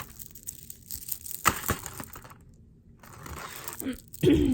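Costume jewelry being handled: rustling and clinking of metal and glass pieces, with a sharp click about a second and a half in. Near the end there is a short falling vocal murmur.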